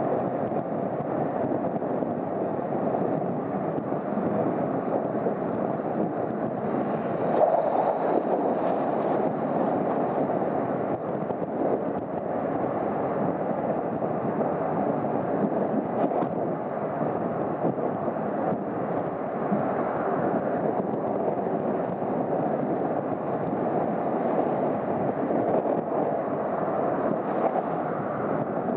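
Steady rush of wind over the microphone and road noise while riding a Honda CBR250R motorcycle, the engine under it.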